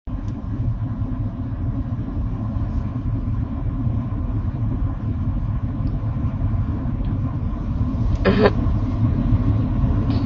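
Steady low rumble of a car heard from inside its cabin, the engine running. A short higher-pitched sound cuts in briefly about eight seconds in.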